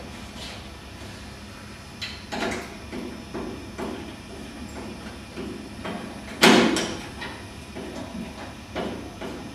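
Sheet-metal battery tray panel being pushed and worked into position by hand: a string of knocks and clunks, the loudest a bang about six and a half seconds in.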